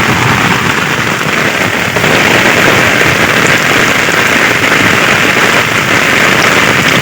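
Heavy rain falling steadily as a dense, loud hiss, growing a little louder about two seconds in.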